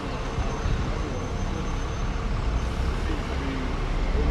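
Busy high-street ambience: road traffic including double-decker buses running by, a steady low rumble, with passers-by's voices faint in the mix.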